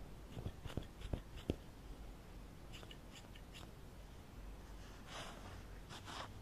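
Hair-cutting scissors snipping close to the microphone in a role-played haircut: four crisp snips in the first second and a half, then a few fainter clicks, and two soft breathy rushes near the end.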